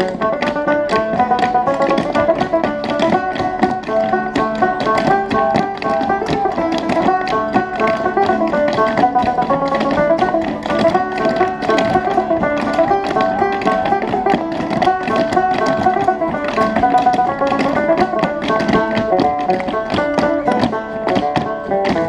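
A team of Appalachian clog dancers' shoes tapping rapid, rhythmic steps on a dance board, over steady instrumental music.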